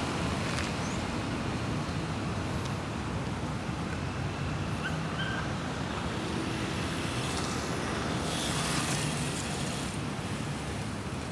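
Street traffic noise: a steady hum of cars going by, swelling a little as a vehicle passes about eight to nine seconds in.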